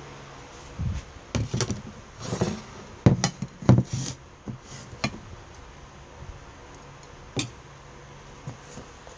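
A run of sharp knocks and clunks from hard objects being handled, bunched over a few seconds, then one more knock a few seconds later.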